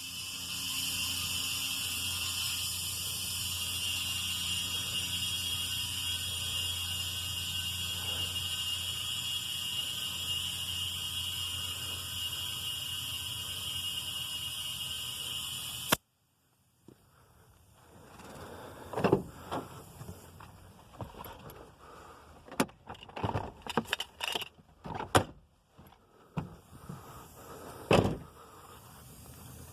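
Portable air compressor running steadily, with a high whine over a low hum, as it inflates a freshly plugged car tire. It cuts off abruptly about halfway through, and scattered clicks and knocks of handling follow.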